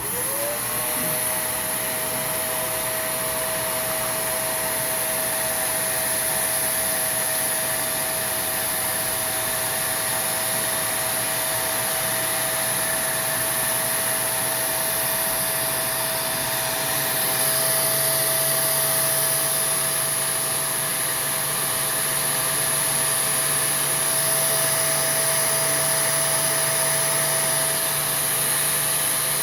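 Vacuum cleaner motor switched on and running steadily, pulling air through a small Tesla turbine. Its whine climbs to a steady pitch within the first second over a loud rushing hiss, and the pitch starts to drop at the very end as the vacuum is switched off.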